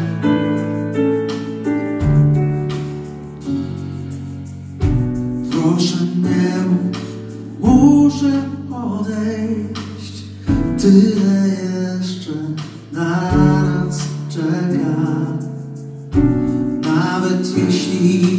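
Live band playing a slow song: keyboard and guitar chords changing about every three seconds, with a voice singing from about five seconds in.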